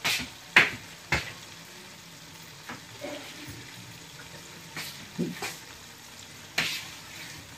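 Chicken pieces in yogurt sizzling faintly in a kadhai on a gas stove, with about five sharp clicks: three in the first second or so and two more in the second half.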